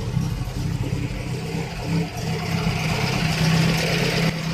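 Ford 2.0-litre SOHC Pinto four-cylinder engine idling steadily, a little louder about three seconds in. The idle is smooth and even, which the owner credits to a newly fitted MSD Streetfire multi-spark ignition module.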